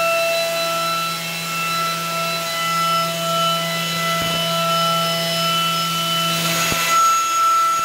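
Kennametal 5720 indexable shoulder mill, 3 inches across, spinning at 10,000 RPM in a CNC mill and roughing a brass drum shell: a steady high whine from the cutter's teeth over a hiss of cutting. The hiss swells briefly near the end, and two short knocks come in the second half.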